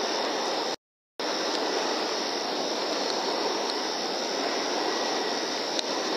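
Steady hiss from the thermal rifle scope's built-in microphone, with a brief cut to silence about a second in and a faint click near the end.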